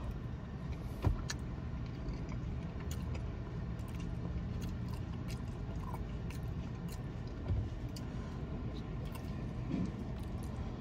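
A man chewing a mouthful of mac and cheese, with a few light clicks of a plastic fork on the paper cup, over a steady low hum inside a car.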